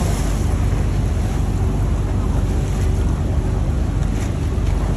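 A river boat's engine running steadily under the rush of water past the hull, with wind buffeting the microphone.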